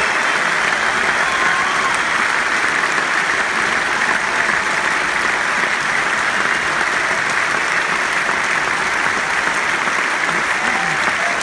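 Large arena audience applauding steadily, with a few scattered shouts.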